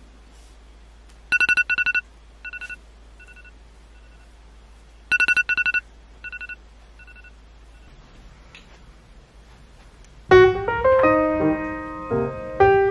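An alarm beeping: a quick run of high-pitched beeps, then fainter repeats that fade away. The pattern sounds twice, about four seconds apart. About ten seconds in, background music led by piano or keys comes in loud.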